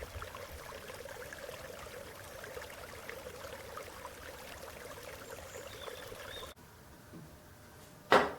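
Steady outdoor water ambience, an even wash of running water or falling rain, which cuts off abruptly about six and a half seconds in to a faint hush. A loud drum hit comes in just before the end.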